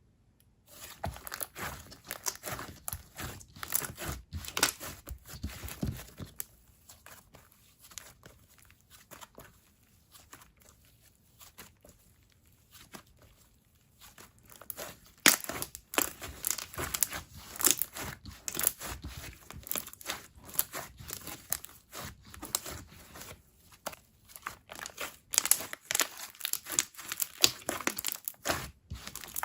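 Coated jelly slime being stretched and squished by hand, giving irregular crackling and popping. The crackles thin out in the middle and come thick and fast again in the second half.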